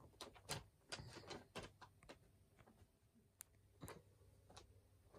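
Faint scratching and rustling taps of a cat pawing and scuffling on a kraft-paper catnip bag: a quick run of rustles over the first two seconds, then a few scattered taps.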